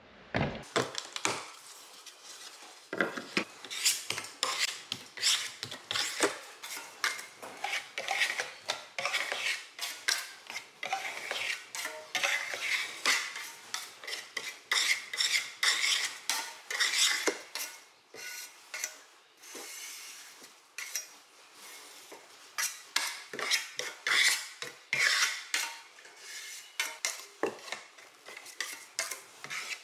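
Steel putty knife scraping joint compound off a stainless steel trowel and spreading it over drywall corner beads: a run of many short, irregular metallic scrapes with a few brief pauses.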